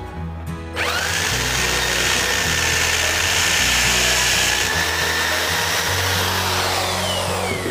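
Corded electric hand drill boring into a wooden board: the motor spins up with a quickly rising whine about a second in, runs at a steady pitch while the bit cuts, and winds down with a falling whine near the end.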